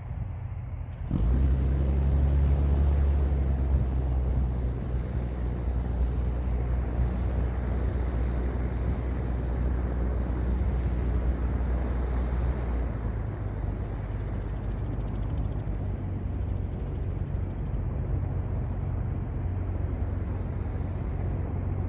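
AutoGyro MTO Sport gyroplane's engine running as a steady low drone while it approaches and lands, mixed with wind noise on the microphone. It starts suddenly about a second in and eases slightly halfway through.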